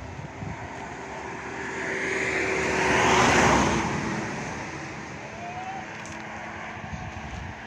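A car passing by: its noise swells to a peak a few seconds in, then fades away.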